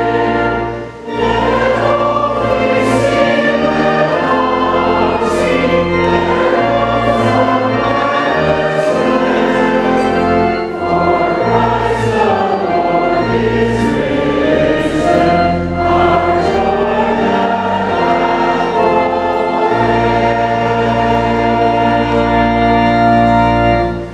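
Choir and congregation singing a hymn, with low notes held steadily underneath.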